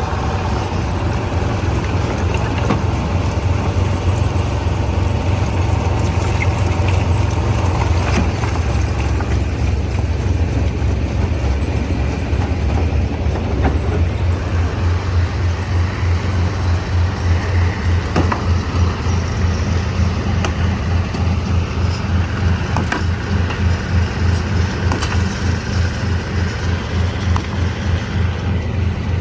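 Stone crusher running: a steady heavy engine rumble that takes on a rapid throb about halfway through, with a few sharp knocks.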